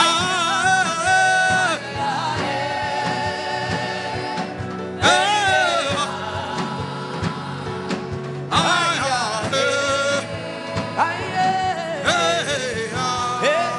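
Gospel worship music: a voice sings long phrases with bending pitch over sustained chords, about four phrases with short breaks between them.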